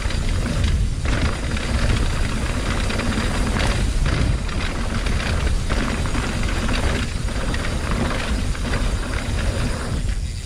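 2020 Norco Torrent HT S2 steel hardtail mountain bike rolling down a dirt trail. The tyres run over the ground with irregular knocks and rattles from the rigid frame and drivetrain, under a steady low rumble.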